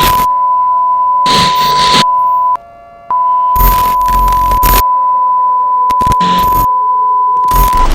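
A steady, high single-pitched broadcast tone broken by repeated loud bursts of static, like a transmission breaking up. The tone cuts out briefly about two and a half seconds in, then resumes.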